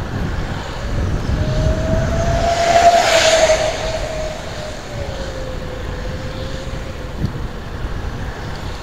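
Steady road and wind rumble from a moving vehicle, with an oncoming vehicle passing close by: its engine tone swells to its loudest about three seconds in, then drops in pitch as it goes past and fades.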